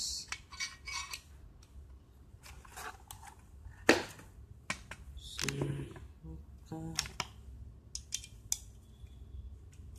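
Metal TV wall-mount bracket parts being handled and fitted together: irregular clicks, clinks and scrapes of metal on metal, with one sharp metallic knock about four seconds in.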